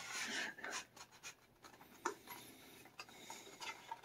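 Faint rustling and scraping of a cardboard sleeve sliding off a stylus pen's inner tray, with one light tap about two seconds in.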